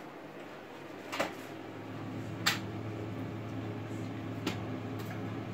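Instant Pot lid being twisted open and lifted off: three sharp clicks and knocks of the lid, about a second in, at two and a half seconds (the loudest) and near four and a half seconds. A low steady hum comes in about a second in and runs under them.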